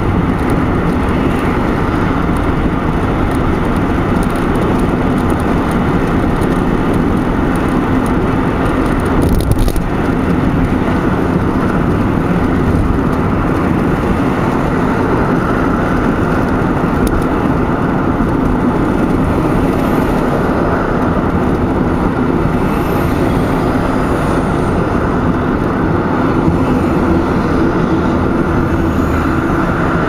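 Steady road and engine noise heard from inside a moving car's cabin, with a brief louder knock about nine and a half seconds in.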